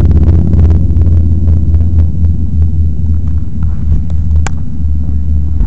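Loud, steady low rumble.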